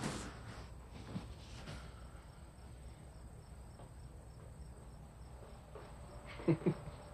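Quiet ambience with faint, evenly repeating high chirping of crickets; two short soft sounds come close together about six and a half seconds in.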